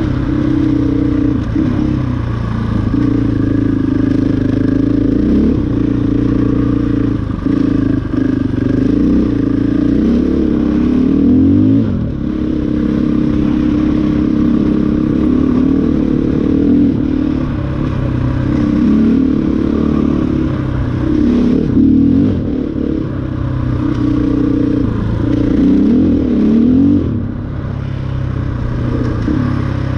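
KTM 500 dual-sport motorcycle's single-cylinder four-stroke engine running close to the microphone while riding, its pitch rising and falling as the throttle is rolled on and off, with a few brief dips where it is let off.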